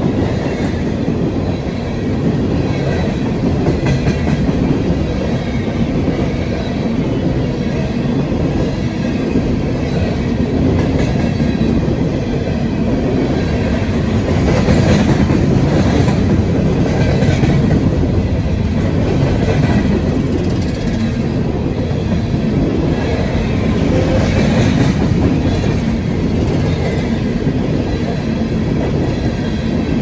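Empty coal hopper cars of a freight train rolling past: a steady rumble of steel wheels on the rails with a clickety-clack over the rail joints, swelling louder a few times.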